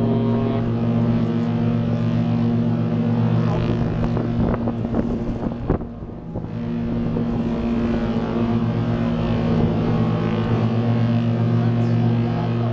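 Ship's engines running with a steady low hum, with an evenly pitched overtone above it, which drops back briefly about halfway through. Wind rumbles on the microphone.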